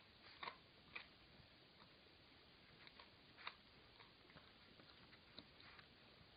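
Near-quiet room with a few faint, irregular clicks and ticks from two dogs: an adult dog gnawing on a chew and a puppy tugging at a fleece blanket on a tiled floor.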